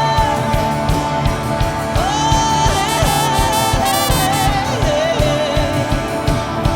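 Live worship music: a band over a steady drum beat, with a singing voice holding long notes that slide up and down, and brass-like tones.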